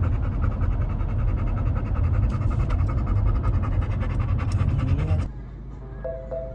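Dog panting rapidly and heavily, close to the microphone, over a low rumble. About five seconds in it cuts off and soft mallet-percussion music begins.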